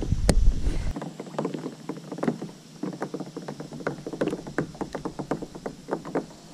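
Snare drum played with sticks: a quick, uneven run of sharp hits, about three or four a second, after a loud low rumble in the first second.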